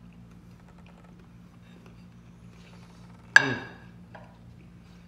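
A metal fork clinks once against a plate about three and a half seconds in, with a short ring that fades quickly. A low steady hum runs underneath.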